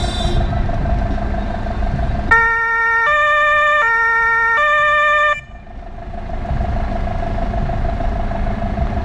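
Fire engine's German two-tone horn (Martinshorn) sounding two low-high cycles, each tone held about three quarters of a second, then cutting off abruptly. A vehicle engine runs steadily underneath.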